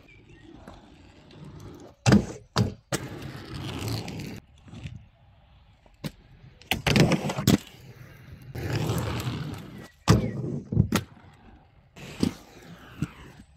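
Inline skate wheels rolling over rough concrete in several one-to-two-second runs, with sharp clacks of the skates hitting the ground in between.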